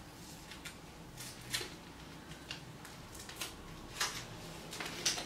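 Duffel bag's straps being undone by hand: a run of small irregular clicks and scrapes from the strap fittings and material.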